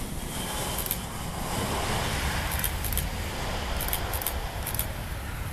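Wind buffeting a phone microphone over the steady distant roar of a Super Air Jet Airbus A320's jet engines as it rolls out on the runway after landing, swelling a second or two in. A few brief high rustles come through as the camera moves past leaves.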